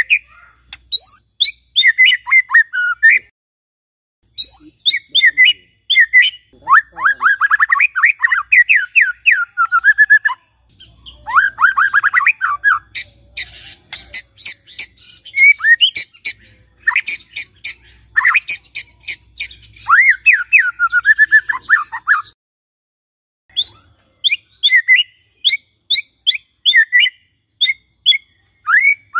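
White-rumped shama singing loudly in fast runs of sharply falling notes. The song includes a stretch of dry, rapid clicks and ticks in the middle, and it breaks off briefly three times.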